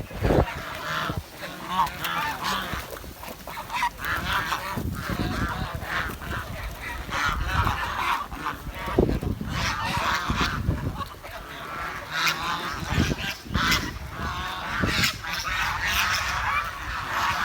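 Swan calling over and over: a string of short, wavering chirping honks at irregular intervals, with a low rumble underneath.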